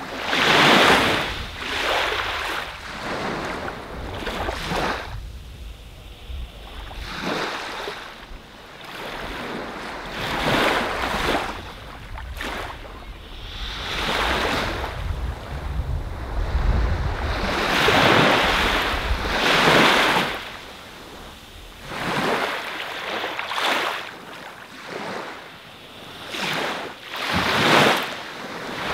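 Waves washing onto a sandy beach, each surge swelling and falling back every one to three seconds.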